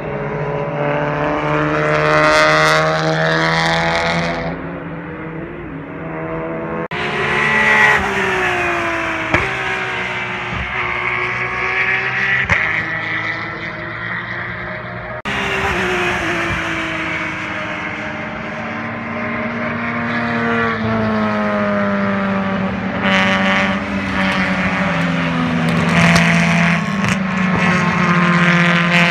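Racing cars' engines at high revs passing on the circuit one after another, each engine note rising as the car accelerates and falling away as it goes by.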